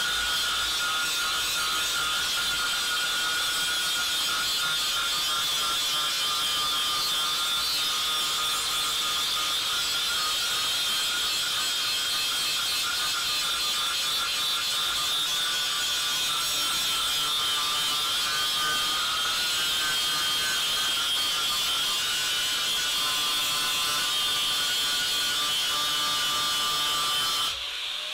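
Handheld angle grinder running steadily with its disc pressed against the rusty steel of a machete blade, grinding it down to bare steel: a continuous high whine that cuts off near the end.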